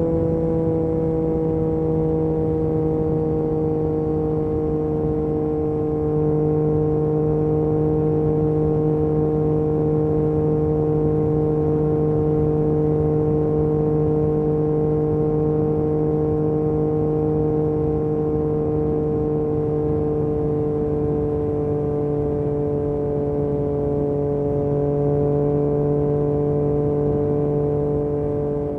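Yamaha MT-09 SP inline-three engine through an Akrapovic exhaust, running under steady load at speed. Its note drops slightly in the first few seconds, then holds almost constant.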